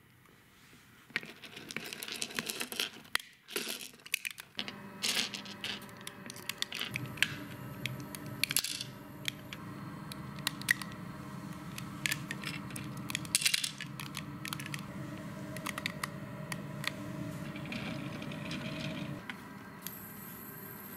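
Small stones clinking and clattering as a toy excavator's bucket scoops them and drops them into a plastic toy dump truck bed, with clicks from the toy's moving parts. A steady low hum runs underneath from about seven seconds in until near the end.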